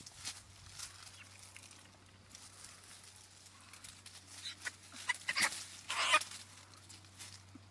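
Domestic chickens giving a few short, loud squawks about two-thirds of the way through, over light crunching of dry leaf litter.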